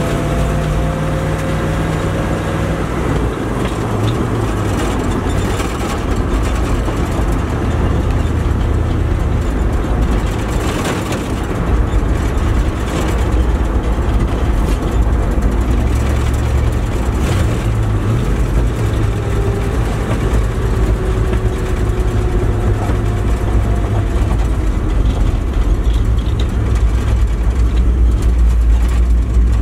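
Cab interior noise of a 1972 Dodge D100 pickup on the move: the engine running and road noise, loud and steady, with a faint whine now and then.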